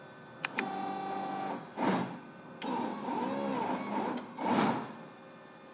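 CNC router's stepper motors driving the axes back to zero: a motor whine that holds a steady pitch for about a second, then rises and falls in pitch as the axes speed up and slow down. A sharp click comes just before the first move, and a short noisy burst comes about two seconds in and again about four and a half seconds in.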